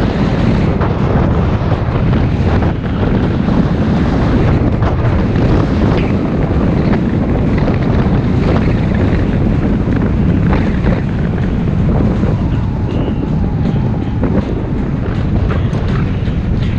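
Wind buffeting the microphone of a camera carried on a moving bicycle: a loud, steady low rumble that covers everything else.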